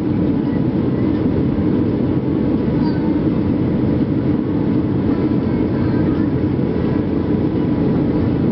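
Steady drone of an airliner's engines and airflow heard inside the passenger cabin during the approach to landing, a low, even rumble with no breaks.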